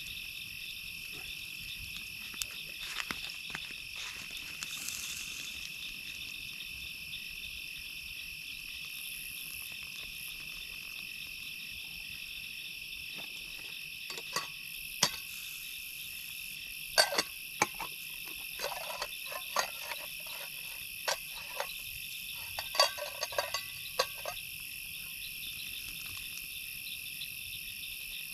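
Steady chorus of night insects in several unchanging high bands. Over its middle stretch come a dozen or so sharp metal clinks and knocks from a cooking pot being handled while potatoes are drained.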